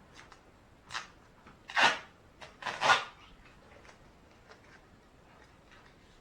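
Tape being ripped off a roll in short rasping pulls: a small one, then two louder ones about a second apart.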